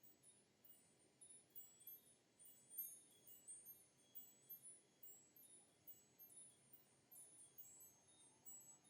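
Faint tinkling of chimes: many light, high-pitched strikes ringing at irregular intervals, several a second.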